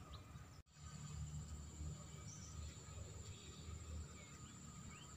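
Faint outdoor ambience: a low, steady rumble with a thin, steady high-pitched whine over it and a few faint chirps. The sound drops out completely for an instant about half a second in.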